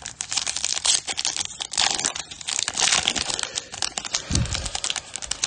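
Foil wrapper of a Panini Prizm basketball retail card pack being torn open and crinkled by hand, a dense run of crackling.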